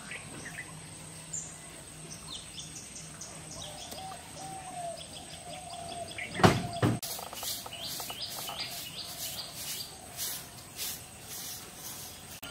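Small birds chirping in a quick run of short, high, falling notes, then a steady series of repeated high calls. One loud thump about six and a half seconds in.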